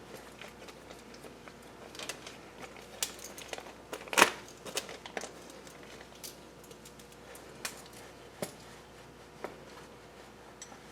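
Rummaging through a parts kit: small parts clicking and clattering, with light rustling of a plastic bag and one louder clack about four seconds in.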